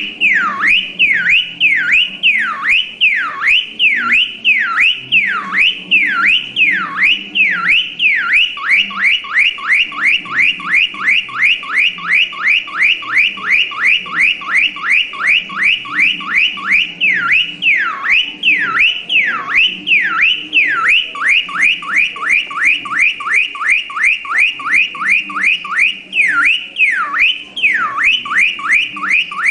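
Electronic car alarm siren cycling through its tones: repeated falling whoops at about one and a half a second, switching about a third of the way in to a faster run of about three or four shorter sweeps a second. It goes back and forth between the slow and fast patterns a few more times and cuts off suddenly at the end.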